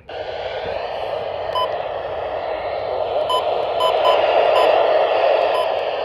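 Steady radio static hiss that cuts in suddenly, with a few very short electronic blips scattered through it.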